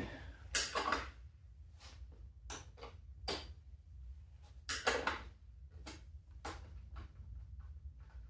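Scattered short clicks and clinks of small metal parts being handled at a motorcycle's tank-mounted dash console, about a dozen separate knocks with a cluster of them about five seconds in, over a low steady hum.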